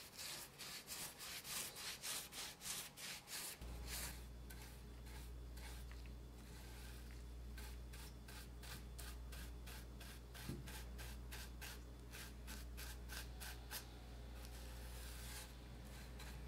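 Paintbrush bristles scratching back and forth over rough, weathered wood while amber shellac is brushed on. The strokes come quick and even, about three to four a second, in two runs, the second starting about seven seconds in.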